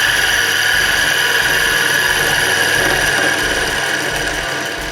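Small bench wood lathe running while a chisel cuts into the inside of a spinning wooden platter: a steady whine with the hissing scrape of the cut, easing a little near the end.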